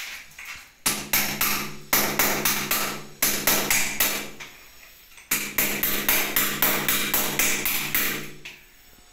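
Hammer chipping old tiles and mortar off a bathroom wall: rapid blows, about four a second, in two runs with a pause of about a second between them.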